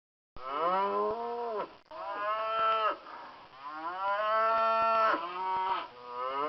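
Cows mooing: about four long moos one after another, each bending down in pitch at its end.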